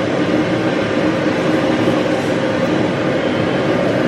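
Handheld dog-grooming dryer blowing steadily on a puppy's coat: a constant rush of air over a steady motor hum.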